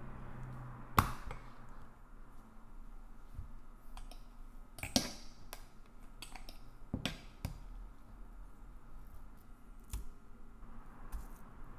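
Scattered clicks and light knocks of a small food processor's plastic lid and bowl being handled, the loudest about a second in, then a metal fork tapping and scraping ground chicken in a stainless steel bowl.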